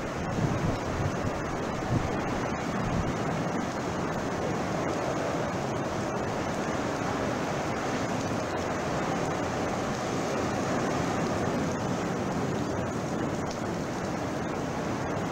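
Heavy hurricane surf crashing and wind blowing in a steady roar, with gusts buffeting the camcorder microphone in the first two seconds.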